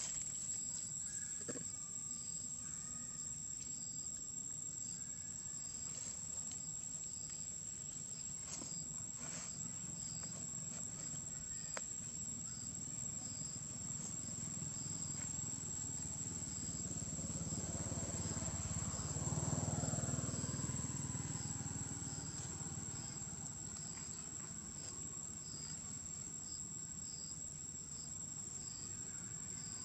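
Insects, crickets or cicadas, keep up a steady high-pitched drone, with a second regular pulsing chirp just below it. About two-thirds of the way through, a low rumble swells and fades, its pitch falling.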